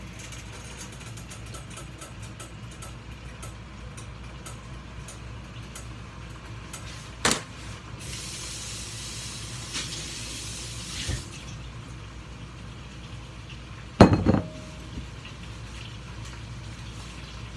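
Kitchen sounds over a steady low hum: a sharp knock about seven seconds in, water running from a tap for about three seconds, then a loud clank of cookware with a brief ring near the end.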